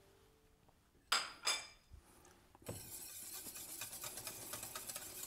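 Metal balloon whisk beating thick béarnaise sauce in a stainless steel saucepan: a couple of metallic clinks a little after a second in, then a fast, steady scraping swish from about halfway through.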